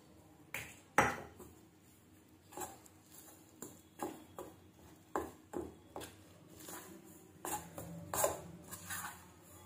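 A steel spoon stirring a thick mix of gram flour and a little water in a steel pot, with irregular clinks and scrapes of the spoon against the pot's sides and bottom.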